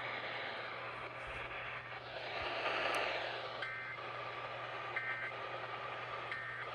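A steady noisy hiss, with three short electronic two-tone beeps about 1.3 seconds apart in the second half, in the rhythm of a backup alarm.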